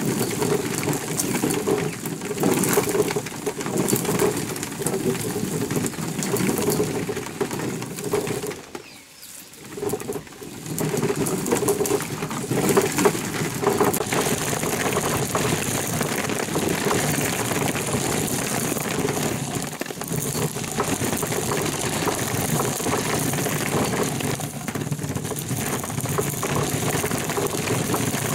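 Hand-turned stone mill grinding dried corn kernels: the upper millstone rumbles and grates against the lower as it is turned, with the kernels cracking between the stones. The sound breaks off briefly about nine seconds in.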